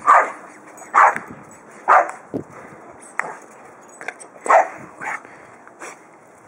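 Small terrier giving excited play barks at a toy held up out of its reach. The barks are short and sharp, about one a second at first, then more spaced out, with a loud one midway.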